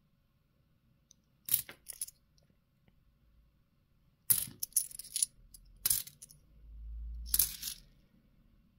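Bimetallic 2-euro coins clinking against each other as they are handled one by one: a few bright metallic clicks in clusters, about a second and a half in, around four to five seconds, and near the end, with a brief low rumble of handling just before the last clink.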